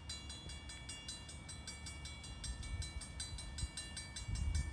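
Grade crossing bell ringing in rapid, even strokes, over the low rumble of an approaching freight train's GE Dash 9-44CW diesel locomotive, the rumble growing louder near the end.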